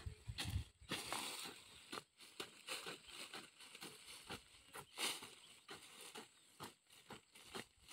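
Short-handled hand hoe chopping and scraping into dry, crumbly soil and dead leaves, a faint uneven run of soft strikes with crackling of dry litter between them.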